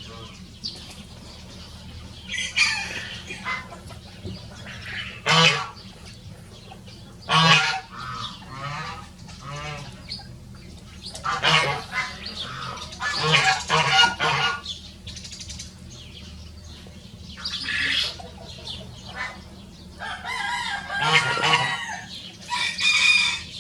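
Two Rosecomb bantam roosters crowing again and again, one call after another, with the calls bunching together about halfway through and near the end.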